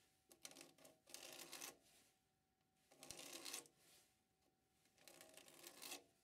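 Faint scratching of a pen marking lines on a plywood block, in three short scratchy strokes.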